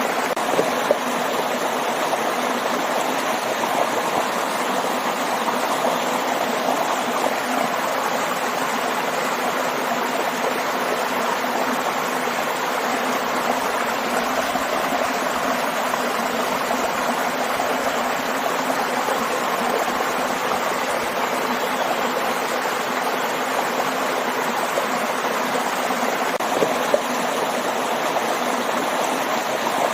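A stream and small waterfall rushing steadily, with a continuous splashing that does not change.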